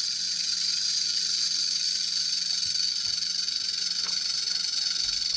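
Rattlesnake rattle sound effect: a steady, high, dry hissing buzz that starts abruptly and holds without a break.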